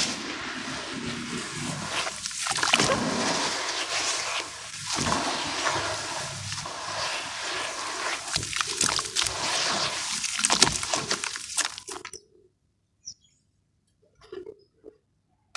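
Hands squishing and sloshing wet charcoal and sand in water in a plastic tub, with a dense crackle of small clicks as the chunks crumble. It stops suddenly about twelve seconds in, leaving only a few faint ticks.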